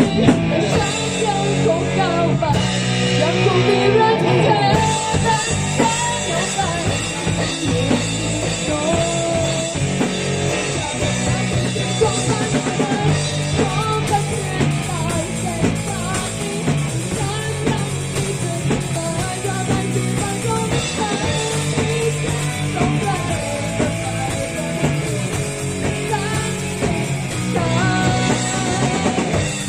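Rock band playing live: distorted electric guitar, bass guitar and a drum kit with cymbals, with a young girl singing the lead into a microphone.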